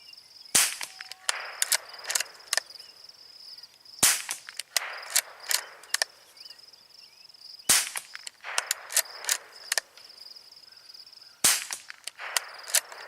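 Four shots from a Mossberg 802 Plinkster .22 LR bolt-action rifle, about three and a half to four seconds apart. Each crack is followed by a quick run of metallic clicks as the bolt is worked to eject the case and chamber the next round. A steady high insect trill runs underneath.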